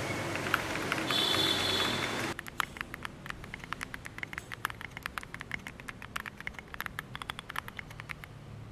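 Typing on a mechanical keyboard, an OWLAB QK65 with stock Boba U4T tactile switches in a PC plate and DCS keycaps: uneven, rapid keystroke clacks, several a second. The keystrokes follow about two seconds of louder, dense hissing noise that cuts off abruptly.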